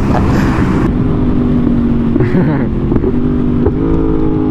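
Yamaha R1 sportbike engine running under way at a steady pitch, stepping up slightly in pitch near the end.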